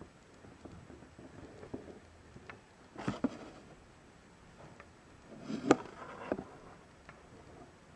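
Handling noise: soft rustles and small clicks, with two louder bursts of rustling and knocking, one about three seconds in and another around five and a half seconds in that ends in a sharp click.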